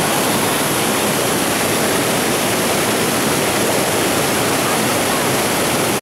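Loud, steady rush of a waterfall, white water pouring over a rocky ledge and cascading into a pool below.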